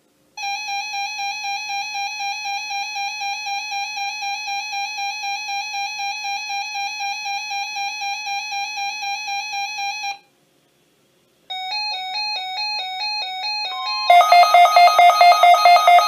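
Weather radio receivers sounding their alert tones, set off by the NOAA Weather Radio required weekly test. A steady pulsing electronic beep runs for about ten seconds and stops. After a short pause comes a stepping warble of tones, and about two seconds before the end a louder, rapidly pulsing alarm joins it.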